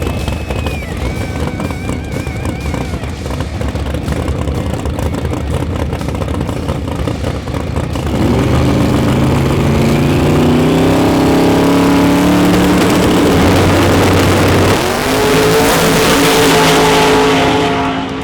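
Drag-racing cars on a no-prep track: a rough rumble, then about eight seconds in the engines rise sharply as the cars launch and accelerate hard. Their pitch climbs, drops briefly about fifteen seconds in at a gear shift and climbs again, and the sound falls away near the end.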